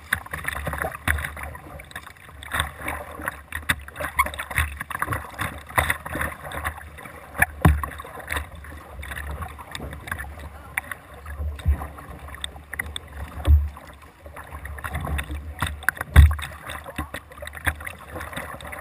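Kayak paddle strokes splashing and water washing against the bow of a whitewater kayak, in an irregular rhythm, with a few louder low thumps.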